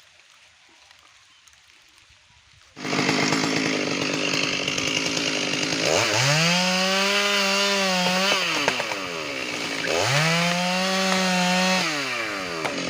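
Stihl MS 382 single-cylinder two-stroke chainsaw running, starting abruptly about three seconds in. It is opened up to full throttle twice, each time rising to a high steady scream held for about two seconds before dropping back.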